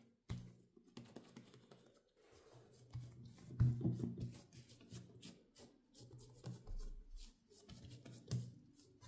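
Hands pressing, patting and rolling soft oat-flour bread dough on a silicone pastry mat: uneven rubbing with dull thumps, the loudest about three and a half seconds in.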